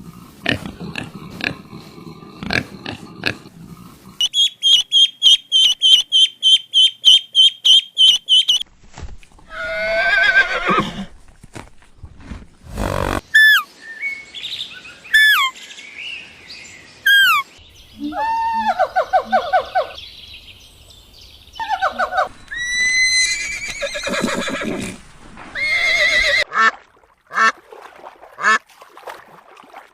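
A string of different animal calls, one short clip after another: a fast run of high chirps for about four seconds, then several separate calls that drop in pitch, and more calls of other kinds toward the end.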